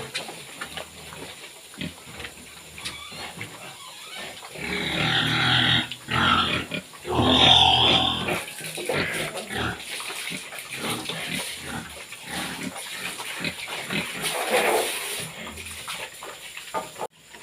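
Domestic pigs grunting and squealing, with the two loudest squeals about five and seven seconds in.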